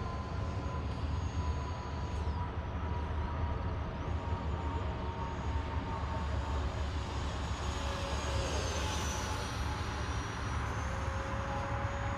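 The electric ducted fan of a Freewing F-22 Raptor 64mm EDF model jet, running in flight with a thin high whine that shifts in pitch a couple of times as it passes, over a steady low rumble.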